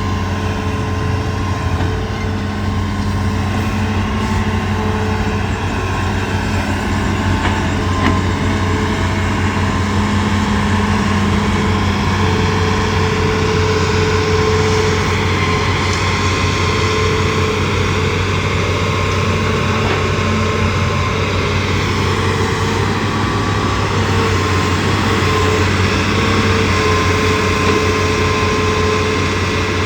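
Hitachi ZAXIS200 excavator's diesel engine running steadily, with whining tones coming and going over it.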